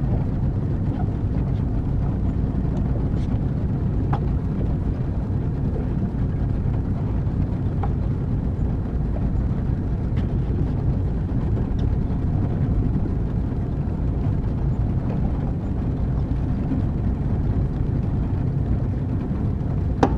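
Small fishing boat's motor running steadily while the boat is underway, a low even drone with a few faint ticks.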